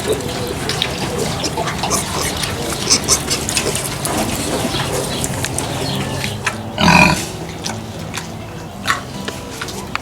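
Farm animals heard close up: a steady background of rustling and small clicks, and about seven seconds in, one loud, short pitched animal call.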